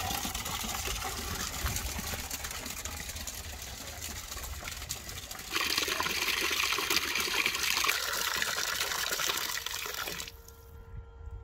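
Water pouring from a pipe spout and splashing into a bucket as a steady gush, louder for about five seconds in the middle, then cutting off abruptly near the end.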